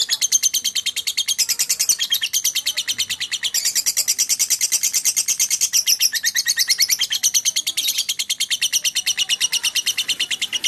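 Lovebird in full, nonstop song: a long unbroken run of rapid, shrill chirps, many a second, changing pitch in phrases every second or two.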